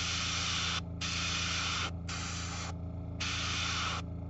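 Airbrush spraying dark black-brown paint in four short hisses, each under a second, with brief gaps between them, over a steady low hum.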